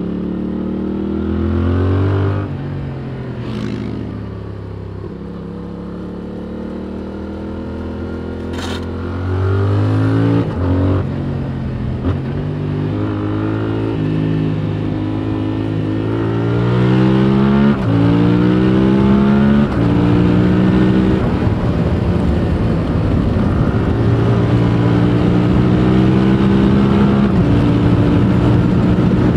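2021 Yamaha MT-07's 689 cc parallel-twin engine through its stock Euro 5 exhaust, heard from the rider's seat. It revs up, then closes off and winds down, then pulls through several upshifts, each a rising sweep cut by a short dip. It settles into a steadier, louder drone for the last several seconds, with two sharp clicks early on.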